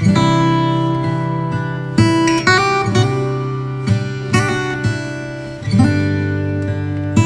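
Background music on acoustic guitar, plucked chords with a new chord struck every second or so.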